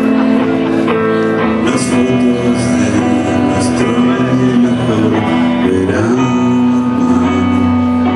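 Live band music led by an electric guitar and an acoustic guitar, held chords changing every second or so.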